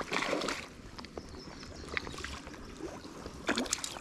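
Pond water sloshing and splashing as a landing net is dipped and swept through it beside a hooked brown trout, with a burst of splashing at the start and another just before the end.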